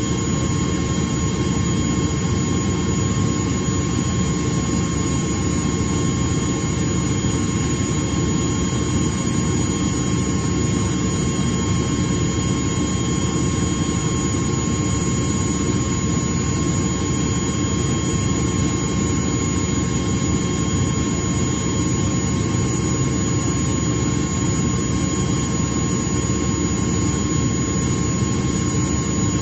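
Atlas Copco ZR 160 VSD FF two-stage oil-free rotary screw air compressor running steadily: a loud, even machine noise with several steady whining tones over it.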